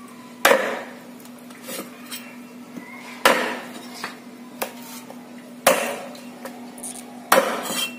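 Meat cleaver chopping softshell turtle meat on a board: four heavy chops roughly two and a half seconds apart, with lighter taps in between.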